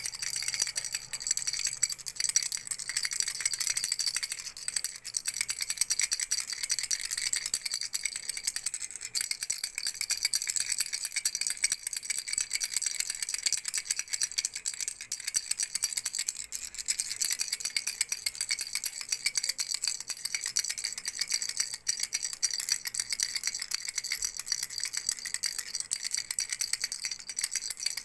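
A baby's frog rattle being shaken without pause, giving a dense, steady, bright rattling.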